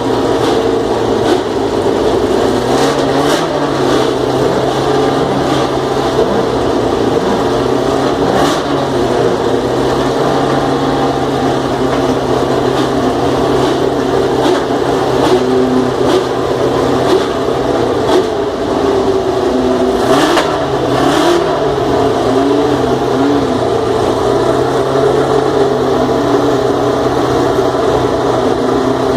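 1979 Lotus JPS Formula One car's Ford Cosworth DFV V8 idling loudly and steadily, with short throttle blips that briefly lift the pitch, several in the first third and a pair about two-thirds through.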